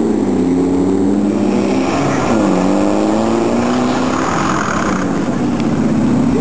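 Off-road race car engine revving hard as it accelerates away from the start line. The pitch climbs, drops sharply at a gear change about two seconds in, then climbs again as the car pulls away.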